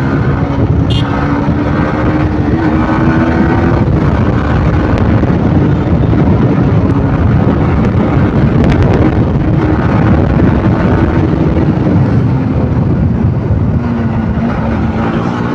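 Yamaha motorcycle engine running steadily under load while cruising. Its pitch drifts gently and dips briefly near the end before picking up again.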